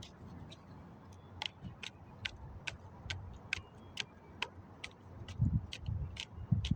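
A steady run of short, sharp, high-pitched ticks, about two to three a second and slightly uneven, with a low rumble coming in near the end.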